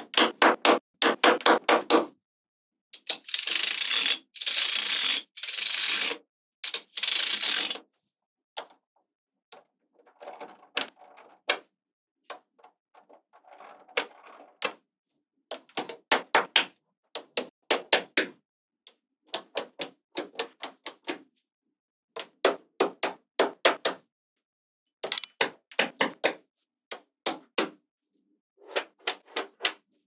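Small magnetic balls clicking sharply as strips of them are snapped onto a wall built of the same balls, in quick clusters of clicks. From about three to eight seconds there is a denser, louder run of clattering.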